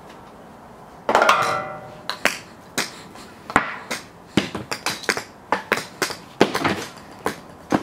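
A single ringing musical note about a second in, then a run of irregular sharp clicks and taps as golf balls are juggled, caught and knocked together in the hands.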